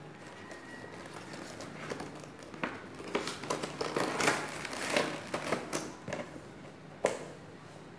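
Cardboard figure box and clear plastic blister tray rustling and crinkling as they are handled and the tray is slid out of the box, with a sharp knock near the end.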